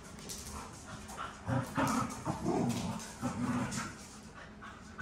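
Dogs vocalizing while playing tug-of-war with a rope toy. From about a second and a half in there is a run of short, low grumbling growls, four or five in a row, each about half a second long.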